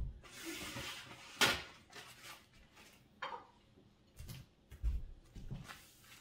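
A ceramic plate being picked up off a stone worktop, with a sharp clink about a second and a half in and handling noise, followed by a few dull thumps like footsteps.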